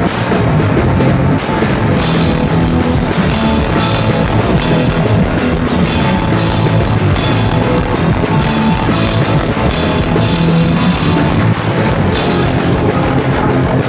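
Live rock band playing loud, with electric guitar and drum kit, heard from the stage.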